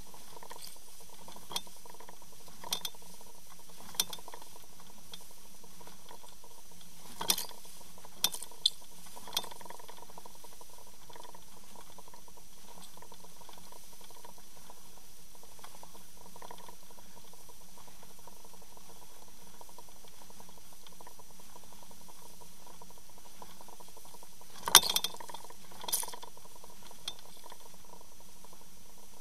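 Underwater sound beside a boat's hull: a steady hiss with a faint hum, and scattered sharp clicks and knocks of water and bubbles against the hull, the loudest cluster about 25 seconds in.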